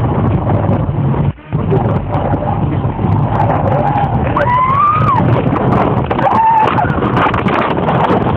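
Car cabin road and engine noise picked up by a dashcam, a dense steady rumble, with a brief break about a second in and two short wavering high-pitched sounds, a squeal or cry, about halfway through.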